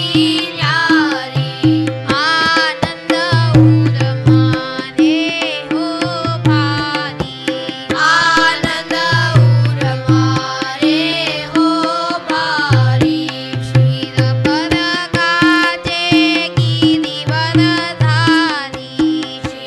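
Devotional kirtan sung in Gujarati, a melodic voice over a steady drone with tabla keeping the rhythm in deep repeated bass strokes.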